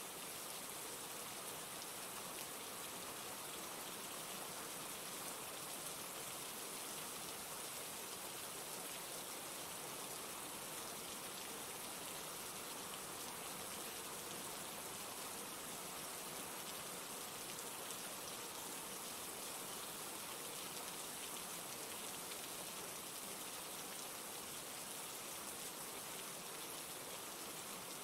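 Steady rain falling: an even, unbroken hiss of drops with no change in strength.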